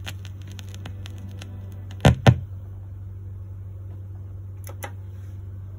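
Stylus crackling in the run-out of a 45 rpm vinyl single, then two loud thumps about two seconds in as the tonearm is lifted off the record. A steady low hum runs under it, and two small clicks near the end come as the arm is handled back toward its rest.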